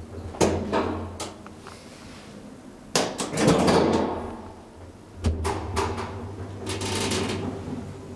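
Hydraulic elevator car doors and machinery: a steady hum cuts out just after the start, a few clicks follow, then a loud rattling door movement about three seconds in. Near the middle a thud comes and the hum starts again, with more knocking and rattling after it.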